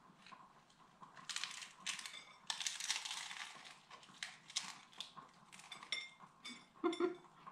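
Crunching of a hard corn taco shell being bitten into and chewed, in a run of crackly crunches, with a brief louder pitched sound near the end.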